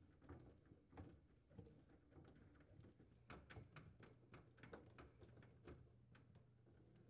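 Faint clicks and ticks of a Phillips screwdriver turning screws into the plastic evaporator fan motor mounting bracket of a refrigerator, coming thickest in the middle.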